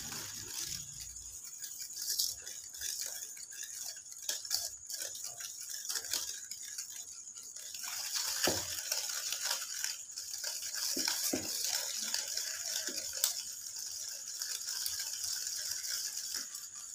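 Wire whisk beating an egg into creamed ghee and sugar in a ceramic bowl: a steady scraping and clicking of the wires against the bowl, with dense rapid clicks.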